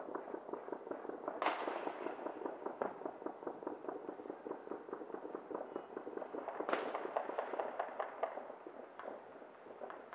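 Fireworks going off around the neighbourhood: a constant rapid crackle of firecracker pops, with two louder bangs, about a second and a half in and again near seven seconds, each fading off.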